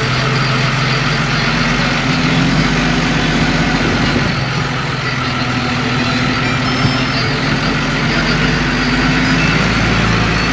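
Engine of peat-harvesting machinery running steadily at an even speed.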